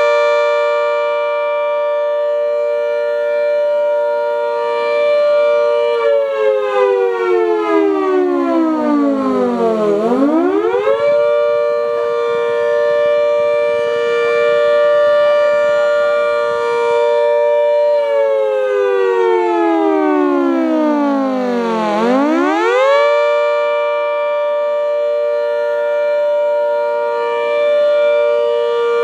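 Half-scale replica Hurricane MKII mechanical siren with a cut horn, driven by a shop vac, sounding the attack signal. Its two-tone chord holds steady for several seconds, slides down in pitch, then climbs quickly back to full tone, twice.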